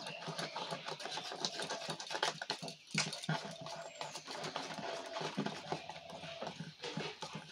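A hand beating thin jalebi batter in a steel bowl, stirred round in one direction: a rapid, irregular run of wet slapping and scraping strokes.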